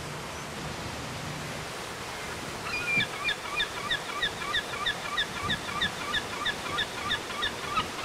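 Steady rushing outdoor noise; about a third of the way in, a rapid, evenly spaced series of short high chirping notes begins, about three a second, and runs on over it.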